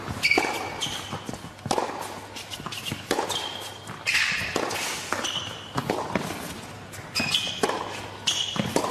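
A tennis rally on a hard court: repeated sharp knocks of racket strikes and ball bounces, with short high squeaks of the players' shoes on the court several times.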